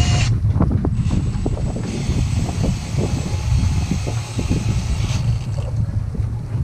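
Wind buffeting the microphone, with scattered light knocks. A steady hiss sets in about two seconds in and stops about five seconds in.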